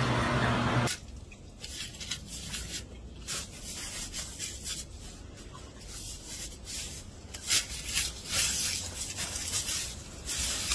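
A steady low hum for about the first second. Then a dog burrows its head through a pile of snow, making irregular crunching and scraping of snow.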